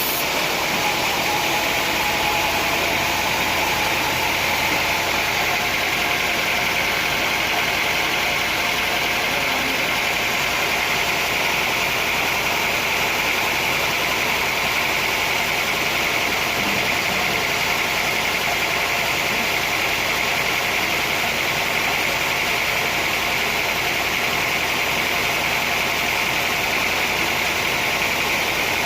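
Sawmill machinery running steadily: an even, engine-like drone with a hiss over it, without separate knocks or cutting strokes.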